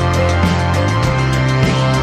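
Background music with sustained tones over a steady beat.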